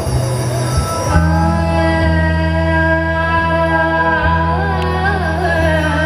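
Live band music for a song on a stage PA: sustained electronic keyboard chords over a steady low bass, changing chord about a second in. A woman's voice sings into a microphone over it in the second half.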